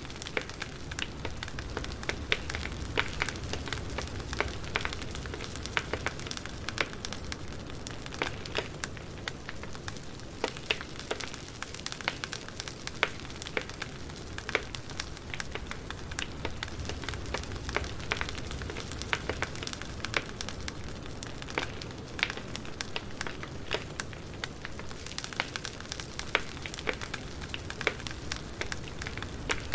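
Wood campfire burning, with frequent irregular small crackles and pops over a steady low-pitched background.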